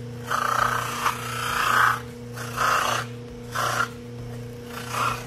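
Electric bench buffer motor running with a steady hum while the edges of a Kydex holster are pressed against its spinning cotton buffing wheel. There are about five short passes, each a rubbing hiss, as the plastic edges are smoothed and rounded over.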